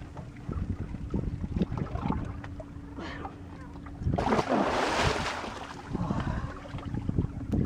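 A large halibut thrashing and splashing heavily at the surface about four seconds in, with wind buffeting the microphone throughout.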